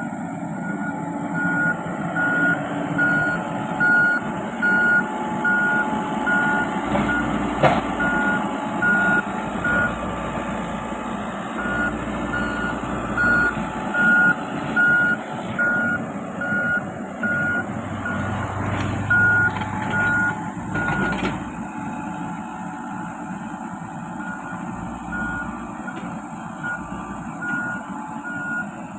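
Komatsu PC78 mini excavator's travel alarm beeping about twice a second over its running diesel engine as the machine moves on its tracks. The beeping pauses twice, and a sharp knock sounds about eight seconds in.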